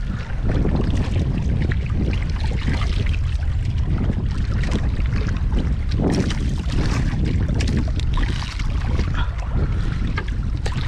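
Wind buffeting the microphone over steady water noise against a small boat's hull, with a few brief knocks.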